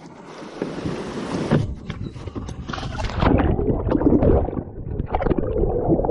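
Water splashing and churning around a canoe on a fast-flowing river, with wind buffeting the microphone; the splashing grows louder and choppier from about three seconds in.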